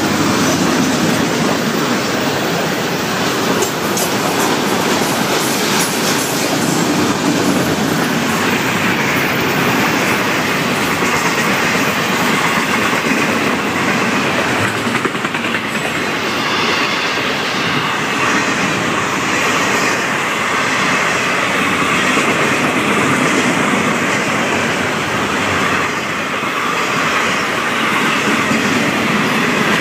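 Freight train's autorack cars and boxcars rolling past at close range: a loud, steady rumble and clatter of steel wheels running over the rail joints.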